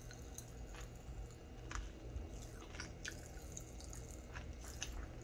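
Popping candy crackling in the mouth: faint, irregular little pops scattered throughout.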